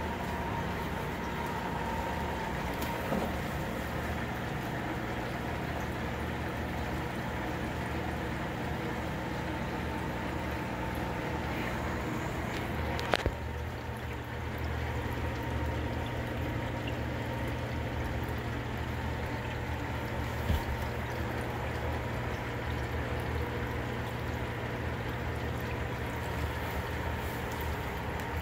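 Steady hum of running aquarium filters and pumps, with water trickling and splashing. Two brief clicks break it, about halfway through and again a few seconds later.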